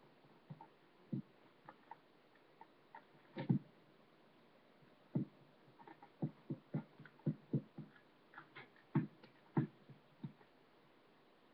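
Worn-out, softened Chacott pointe shoes knocking on the floor during pointe work: scattered single knocks, then a quick run of taps in the middle and a few more near the end. The loudest knock comes about three and a half seconds in.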